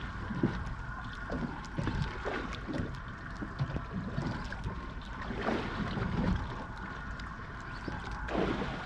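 Wind buffeting the microphone and water knocking against a small boat's hull, with a steady hum underneath.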